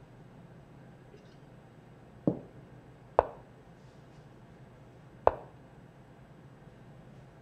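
Three sharp knocks of chess pieces being set down on a DGT Smartboard electronic chessboard, the first two about a second apart and the third two seconds later, over a low steady hum.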